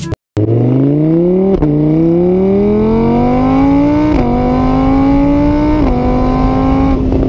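Car engine accelerating through the gears, loud. Its pitch rises, falls back at each upshift about one and a half, four and six seconds in, then holds steady at speed.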